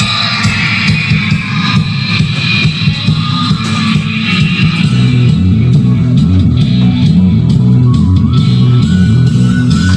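Rock music with electric guitar and a heavy bass line, played through a ZK-MT21 2.1-channel amplifier board and its subwoofer as a test of the repaired subwoofer output.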